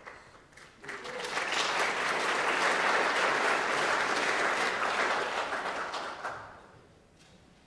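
Audience applauding. The applause starts about a second in, holds for several seconds and dies away near the end.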